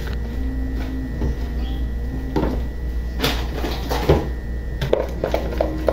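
A few separate knocks and clunks of kitchen handling, like a cupboard door or a bowl being set down, over a low steady hum.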